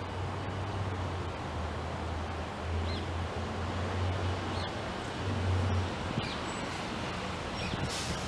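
Wind gusting over the microphone with a low rumble that swells and fades, and leaves rustling, while a bird gives a few faint short chirps spaced through it.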